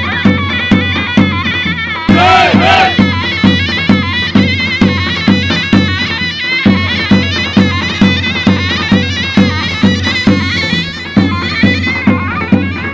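Turkish folk dance music: a shrill reed pipe plays a wavering, ornamented melody over a steady drum beat, with a loud sliding flourish about two seconds in.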